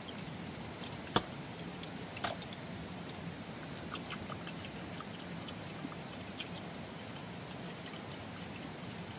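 Water trickling and dripping in a steady wash, with two sharp knocks, one about a second in and a softer one a second later, and scattered light ticks after them.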